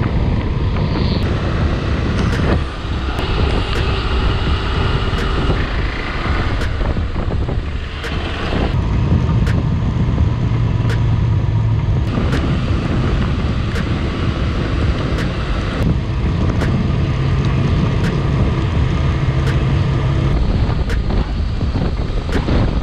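Motorcycle running on the road, the single-cylinder engine of a KTM 390 Adventure, its note shifting as the speed changes, under a steady rush of wind on the microphone.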